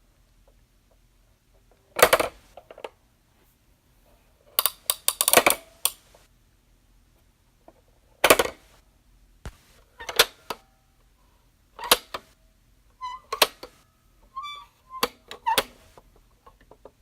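Pop-up toy snapping and popping again and again: sharp clicks at uneven gaps, some single and some in quick clusters of two to four, with a few brief squeaks among them in the later part.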